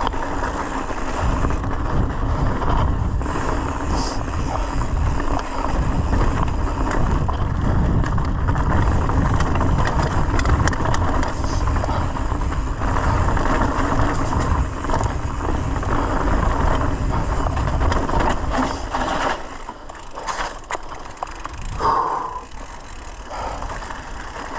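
Mountain bike riding down a rocky dirt trail: tyres running over loose stones and the bike rattling, over a steady low rumble. It slows near the end and the noise drops.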